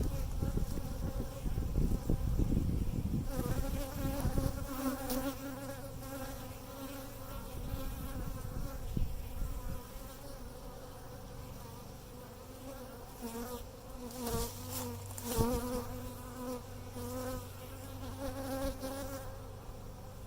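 Honeybees buzzing around an open hive, with individual bees flying close past the microphone so that the buzz swells and wavers in pitch. A low rumble fills the first few seconds.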